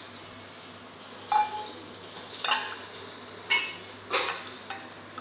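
A wooden stirring stick knocking against a small metal pot in a child's play cooking. There are four ringing clinks, about a second apart.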